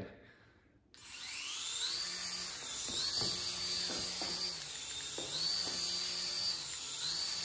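Force1 Orbiter flying orb ball's small propeller motors spinning up about a second in, then a high whine that rises and falls in pitch several times as it hovers, with a few faint knocks.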